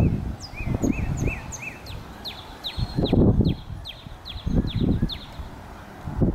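A songbird singing two runs of short downslurred whistled notes, about five slower ones and then about eight quicker ones, stopping about five seconds in. Under it, gusty wind rumbles on the microphone and is the loudest sound.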